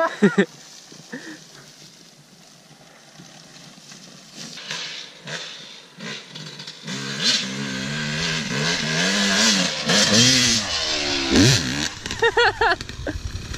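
Yamaha YZ250 two-stroke dirt bike engine revving on a run-up, the pitch rising and falling with the throttle. It is faint at first and grows louder from about seven seconds in, with a sharp rising rev near the end.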